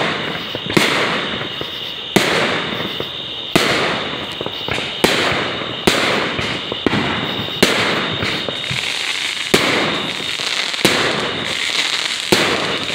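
Aerial fireworks going off in a steady series, a sharp bang about every second and a half, with crackling between the bangs.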